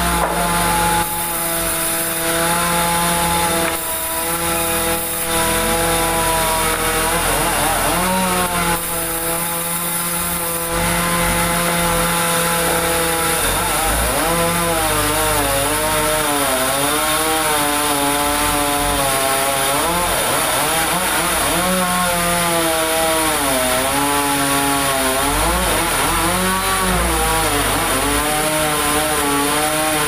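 Large band sawmill running continuously, a steady mechanical hum with a high hiss. Its note holds level at first, then from about halfway through wavers up and down as the machine's speed shifts.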